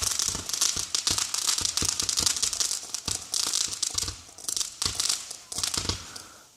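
Fireworks crackling: a dense run of small rapid pops with a hissing sizzle, thinning out and fading away over the last two seconds.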